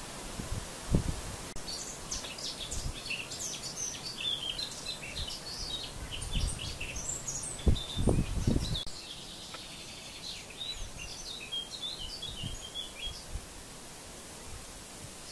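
Small birds twittering in quick, high chirps over a steady outdoor noise bed, the chirping dying away near the end. Low rumbling thumps come about a second in and, loudest, around eight seconds in.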